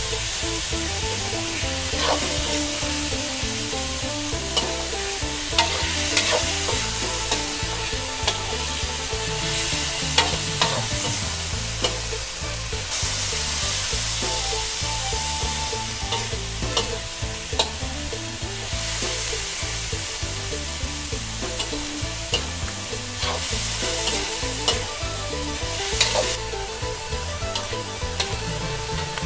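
Sliced pork sizzling in a hot wok while a metal spatula stirs and scrapes it, with sharp clicks of the spatula striking the pan scattered through the steady frying hiss.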